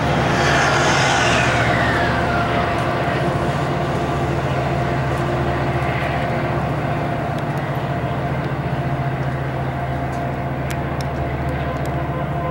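Diesel-powered Amtrak Pacific Surfliner passenger train pulling out under power: a steady low engine drone and the rumble of the cars rolling away, slowly fading. A high whine falls in pitch in the first two seconds, and a few sharp clicks come near the end.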